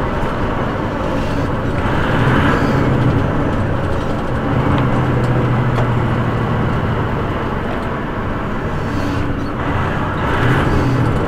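Semi-truck's diesel engine running steadily under way, heard inside the cab, over a steady wash of tyre and road noise, with a swell of louder road noise about two seconds in and again near the end.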